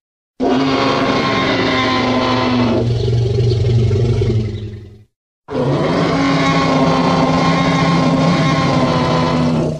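Two long, deep creature roars in the style of the Jurassic Park T. rex roar, a sound effect for the dinosaur Digimon Greymon. Each lasts about four to five seconds, with a short silence between them.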